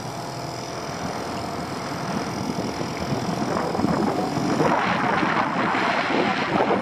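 Wind buffeting the microphone and water slapping against the hull of a small open boat. Both get louder and rougher about four seconds in.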